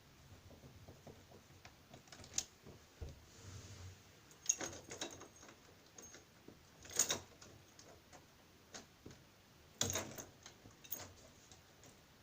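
Irregular sharp clicks and light knocks of hand work on a mortice deadlock and its fittings, with the strongest clicks about two, four and a half, seven and ten seconds in.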